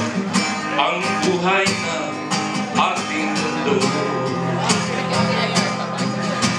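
Live acoustic guitar strumming steadily, with a man singing into a microphone over it in short phrases.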